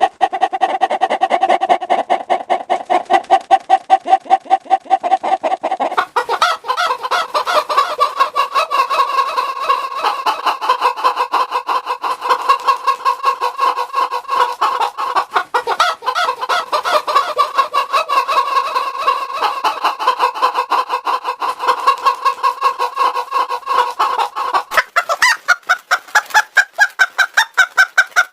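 Hen clucking in a fast, steady run of clucks, altered by a voice changer. The effect switches about six seconds in to a brighter, higher sound, and shifts higher again near the end.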